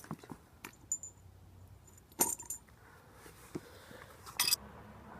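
Sparse light metallic clinks from metal tools being handled, with a short clatter about two seconds in and a sharp high tick near the end.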